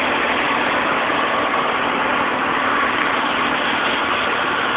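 Steady, unchanging engine noise of a fire engine's pump running to feed a hose, mixed with the rush of the water jet spraying.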